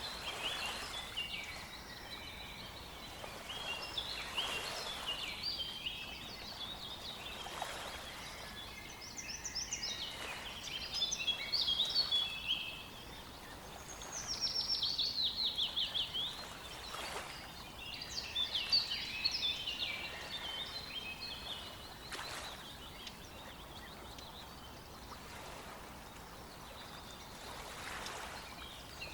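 Songbirds singing in short chirping phrases over a faint steady background hiss, with one fast trill of rapid notes falling in pitch about halfway through.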